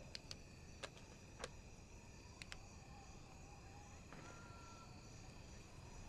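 Quiet night-time forest ambience: faint steady chirring of night insects, with a few soft sharp clicks in the first couple of seconds.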